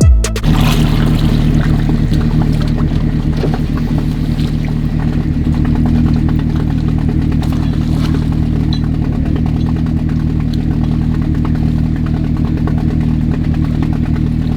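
Off-road 4x4's engine running steadily at an even, unchanging speed, with a light clatter over it.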